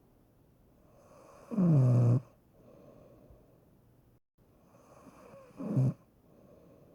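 A sleeping person snoring: two loud snores, the first about a second and a half in and the longer of the two, the second shorter near the end, with faint breathing between.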